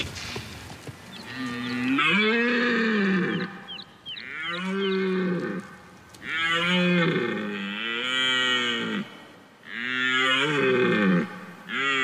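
Red deer stag roaring in the rut: about five long, deep bellows, each rising and then falling in pitch, coming every two to three seconds.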